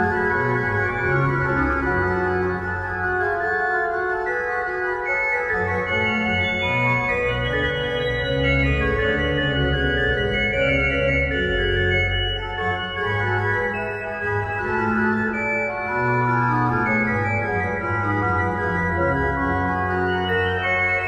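Organ playing slow sustained chords, the bass notes changing every second or so.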